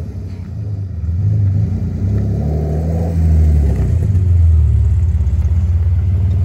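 BMW E36 3 Series coupe's engine and exhaust running loudly at low speed, the pitch rising and falling with the throttle, then settling into an even, fast low pulse about four and a half seconds in.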